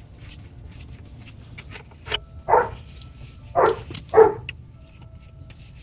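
A dog barking three times, short barks, the last two close together, with a few faint sharp clicks in between.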